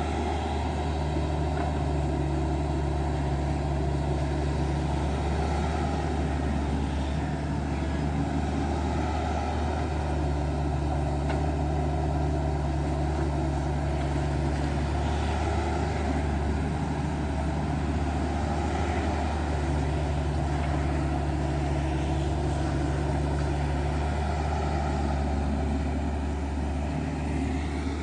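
Kubota U50 mini excavator's diesel engine running steadily as it works, with a higher note that rises and falls away several times.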